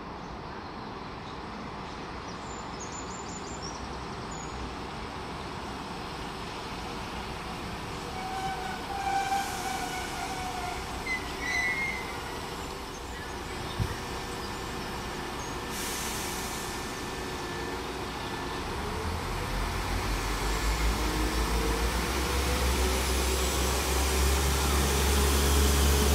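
Class 172 Turbostar diesel multiple unit approaching and running into the platform, growing steadily louder. A few brief high squeals come near the middle, and a deep diesel engine note builds over the last several seconds as the train draws close.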